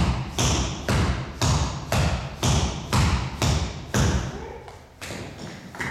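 Tap shoes striking a hard dance floor in a steady rhythm, about two sharp taps a second, growing fainter after about four seconds.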